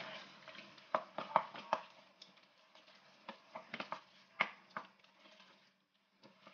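Wooden spoon stirring lamb, onions and a tomato-harissa base in a stainless steel pot, with irregular light knocks and scrapes against the pot over a faint sizzle of the mixture frying in olive oil. The sounds stop briefly near the end.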